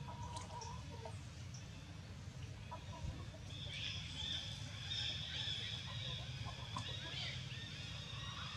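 Birds calling, the high calls thickest from about three and a half seconds in, over a low steady rumble.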